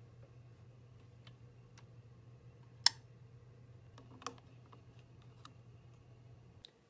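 Handling noise of a phone camera: scattered faint clicks and taps, the loudest a single sharp click about three seconds in and a smaller one a second later, over a low steady hum.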